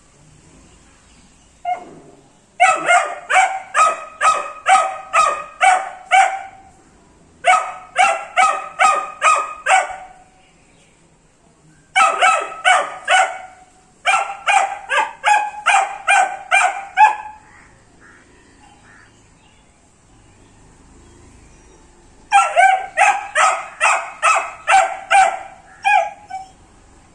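A 78-day-old Doberman pinscher puppy barking in quick runs of about two to three barks a second, five runs with short pauses between them, after a single bark.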